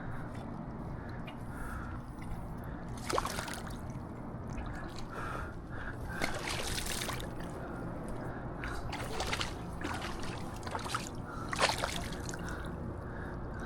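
Water splashing and sloshing in a few short bursts, the sharpest near the end, over a steady hiss of moving water.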